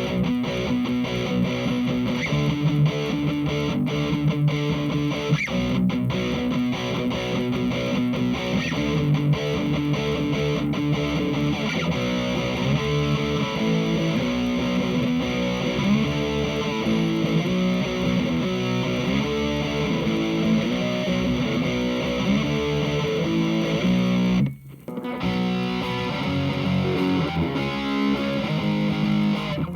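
Electric guitar played through a Hughes & Kettner Attax Metroverb 50-watt transistor amp on its overdrive (lead) channel, giving a distorted tone over a run of changing notes and chords. The playing stops briefly about 25 seconds in, then carries on.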